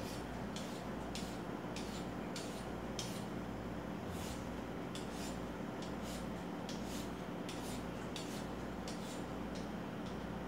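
A vegetable peeler scraping the skin off a carrot in short, rhythmic strokes, about two a second, over a steady low hum.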